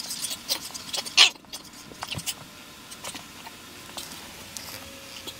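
An American Bully dog rolling and wriggling on a rug: rustling and scuffling, busiest in the first two seconds, with one sharp, louder noise about a second in, then quieter scattered ticks.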